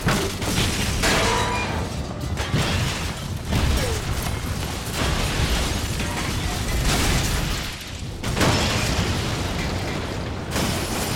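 Film action sound effects of a heavy mobile crane truck crashing through a glass storefront: glass shattering, metal grinding and debris crashing, with repeated heavy impacts over a dense, loud din.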